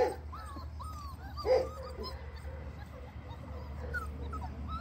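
Month-old Dalmatian puppies whining and yelping: a sharp yelp at the start and another about a second and a half in, with short rising-and-falling whines between them and fainter, higher whimpers near the end. The puppies are eager to suckle from their mother.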